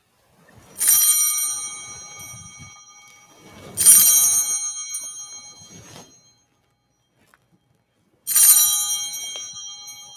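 Sanctus bells rung three times at the elevation of the consecrated Host, each ring a bright jangle of high tones that fades away over about two seconds.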